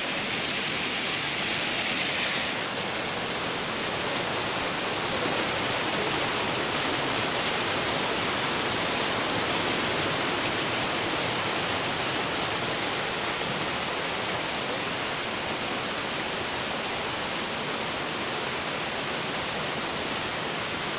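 Waterfall rushing: a steady, dense hiss of falling water, a little brighter for the first two seconds or so.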